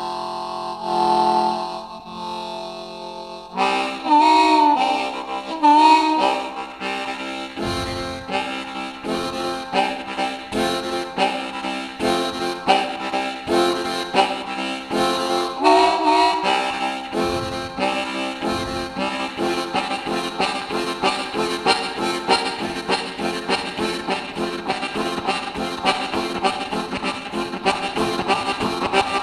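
Low F harmonica playing a steam-train piece: held chords for the first few seconds, then from about four seconds in a fast, even rhythm of repeated chords.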